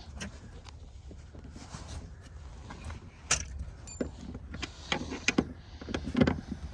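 Scattered metallic clicks and clanks of a breaker bar and socket working loose a tight seat bolt in a pickup cab, with a few sharper knocks about three to six seconds in over a low steady hum.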